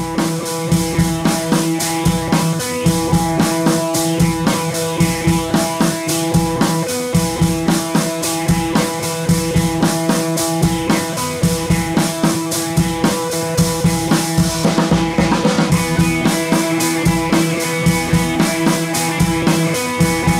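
Background music with a steady drum-kit beat and sustained tones.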